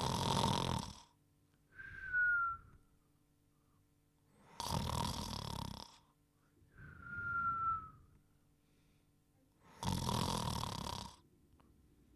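Snoring in a steady breathing rhythm: three rough snores about five seconds apart, each followed by a thin whistle that falls slightly in pitch.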